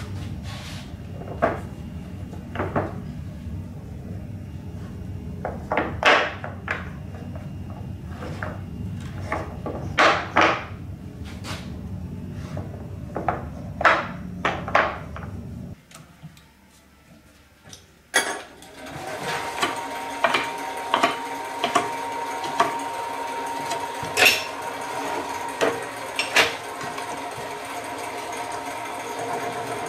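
Hardwood salt-mill blanks knocking and clacking against each other as they are picked up and stacked, over a steady low machine hum that stops about two-thirds of the way through. After a short quiet, a wood lathe runs with a steady hum, with occasional clicks.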